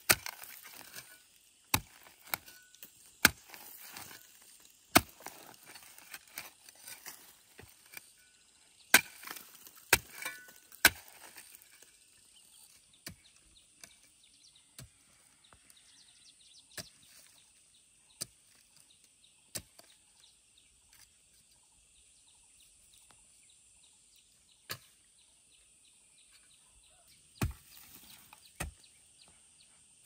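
Hand hoe chopping into hard, rooty hillside soil: sharp single strikes about every second and a half for the first twelve seconds, then fewer and fainter blows, with a couple of loud ones near the end.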